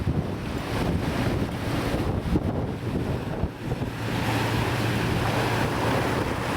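Wind buffeting the microphone, a continuous rushing noise, over a steady low hum.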